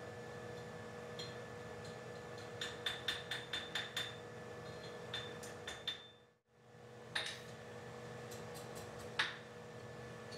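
Blacksmith's hammer striking a heart of 6 mm round steel bar to widen and reshape it: a quick run of about eight light, ringing strikes, then a few single strikes, over a steady hum. The sound cuts out briefly about six seconds in.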